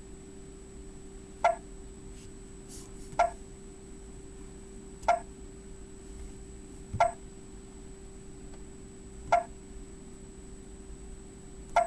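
Tesla Roadster's dash touchscreen giving a short electronic beep each time a button on it is pressed: six beeps, roughly two seconds apart, over a steady faint hum.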